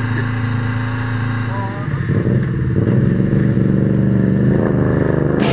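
Motorcycle engines running in a group at idle; about two seconds in the sound gets louder and rougher as more engine noise comes in.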